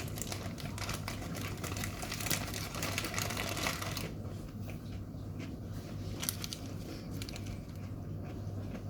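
Crunchy chewing of a raw, juicy chili pepper pod, densest over the first four seconds, with another short burst of crunching about six seconds in.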